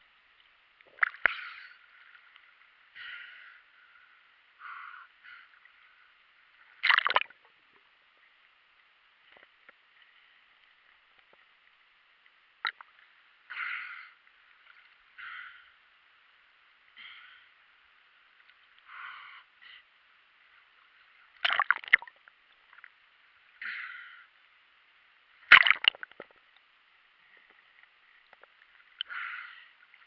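Water sloshing and splashing against a GoPro camera held at the sea surface, heard thin and muffled through its housing: irregular splashes every second or two, with a few sharper, louder slaps.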